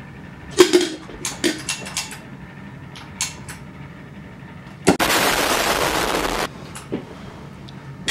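A few sharp clicks, then a handheld propane torch lights with a pop and its flame hisses steadily for about a second and a half before cutting off abruptly.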